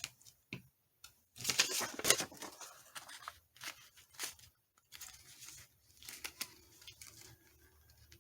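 Paper being handled and rubbed: a run of short rustling, scraping strokes, the longest about a second and a half in, with a few light taps between them.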